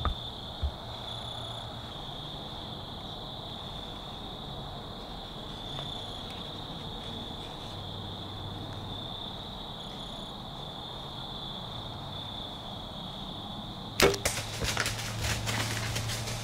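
Insects trilling steadily in the woods. About 14 s in, the single sharp snap of a compound bow shot and the arrow striking a buck, followed at once by a couple of seconds of crackling and rustling as the deer runs off through dry leaves; the hunter judges it a good hit.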